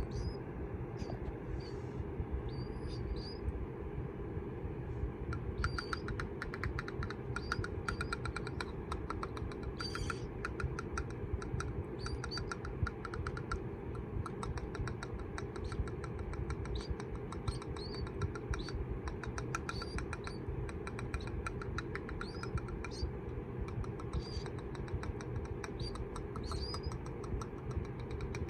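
Baby killdeer chicks peeping: short, high, rising peeps repeated every second or so over a steady low rumble. Rapid clicking joins in about six seconds in.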